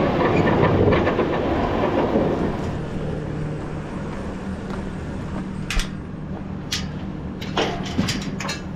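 Engine running steadily in the background, with a loud rattling clatter that fades over the first two to three seconds. From about six seconds in come sharp metallic clinks and knocks of a chain being handled on a steel pipe gate.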